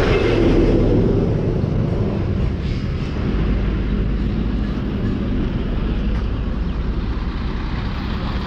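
Road traffic: a motor vehicle's engine and tyres running close by as a steady low rumble, loudest in the first second.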